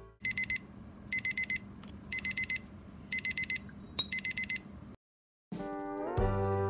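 Digital kitchen timer going off: its alarm beeps in bursts of four quick high beeps, about one burst a second, five bursts in all, and stops just before five seconds in as it is switched off with a button press.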